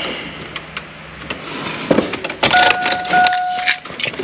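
Vehicle dashboard warning chime sounding two steady, back-to-back electronic tones about two and a half seconds in, among clicks and rattles from handling under the dash.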